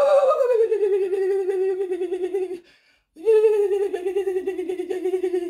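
A woman's voice in two long, trembling wordless cries, each sliding down in pitch and then held, the second starting about three seconds in.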